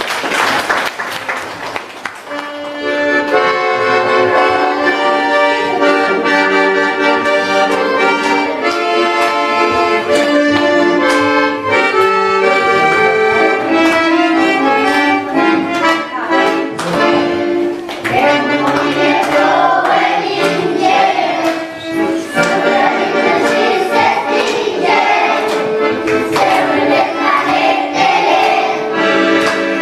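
Piano accordion playing a tune of sustained chords, starting about two seconds in. Children's voices join, singing along, from about eighteen seconds in.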